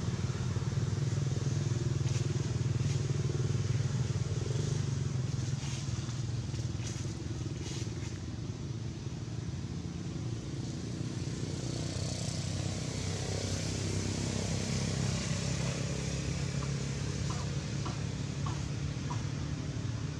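A steady low engine-like rumble. A higher hiss swells in the middle, and a few faint short chirps come near the end.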